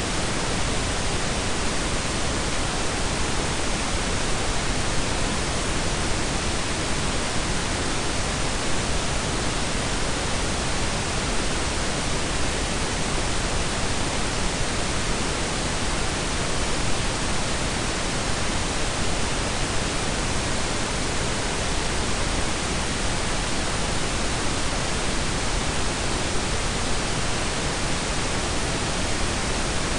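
Steady blend of pink and brown noise: an even, unchanging hiss with a deep rumble beneath, with no tones or events.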